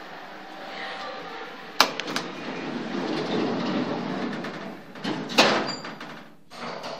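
Station noise, with a train heard before it, coming in through the hydraulic elevator's open doorway, with two sharp knocks about two and five seconds in. The noise cuts off abruptly near the end as the elevator doors close and shut it out.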